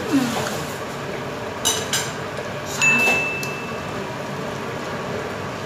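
Metal spoon and utensils knocking against a large stainless steel pot while stir-fried bean sprouts are tossed. Two light clinks come about a second and a half in, then a sharper strike rings out as one clear tone for about a second, over a steady background hum.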